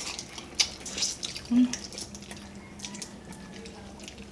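Eating sounds of people picking apart and eating blue swimming crab (alimasag) by hand: scattered small clicks of shell and wet smacks and sucks at the meat, the sharpest click about half a second in.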